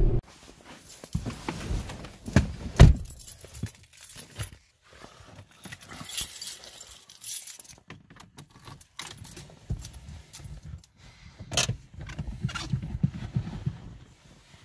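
Car keys jangling, with clicks, knocks and rustling as the key is handled and turned in a Volkswagen's ignition before a cold start. No engine is running yet. The loudest is a sharp knock about three seconds in.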